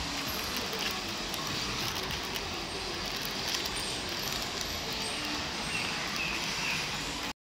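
Steady city street ambience: a continuous wash of traffic noise with a low rumble, cutting off suddenly near the end.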